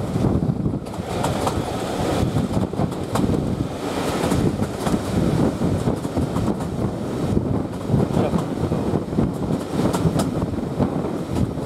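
Steam-hauled heritage train's carriage running along the line, heard from an open carriage window: a steady rumble of wheels on rail with a few sharp clicks.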